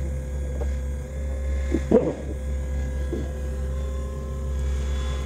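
Radio-controlled scale-model CAT 5110 excavator running with a steady hum and whine as it moves its arm and bucket. A short loud clatter comes about two seconds in, and a smaller one about a second later.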